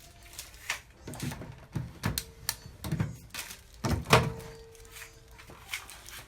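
Handling noises: a series of irregular knocks and thuds, the loudest about four seconds in.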